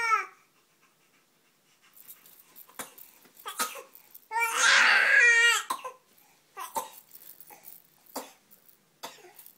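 A small child's loud, high-pitched shout, about four seconds in and lasting about a second and a half, after the falling tail of an earlier shout at the very start. Between and after the shouts there are only a few faint short sounds.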